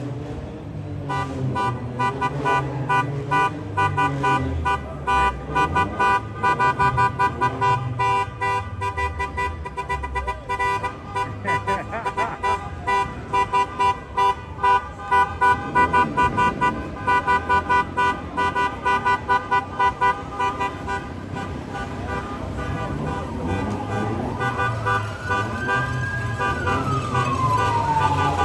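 Car horns honking in quick repeated toots, about two or three a second, over a low rumble of car engines. Near the end a wailing tone rises and falls once.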